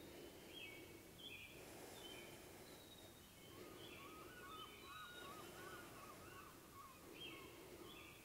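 Near silence with faint birdsong: scattered thin chirps, and a quick warbling run of short notes in the middle. Low room noise swells and fades softly every couple of seconds.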